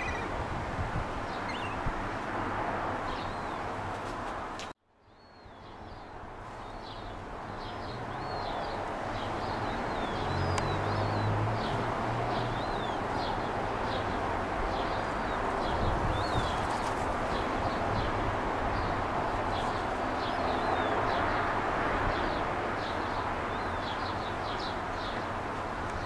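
Gull chicks peeping: short high cheeps repeated about twice a second over a steady rushing background. The sound cuts out suddenly about five seconds in and fades back up.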